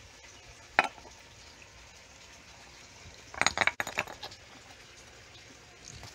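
Empty glass coffee jar being set down on stone paving: one sharp knock about a second in, then a quick cluster of glassy clinks a few seconds later.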